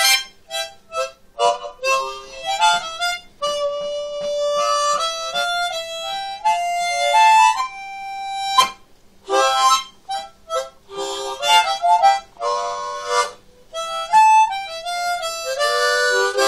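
Harmonica playing a melody with chords, in short phrases with brief pauses.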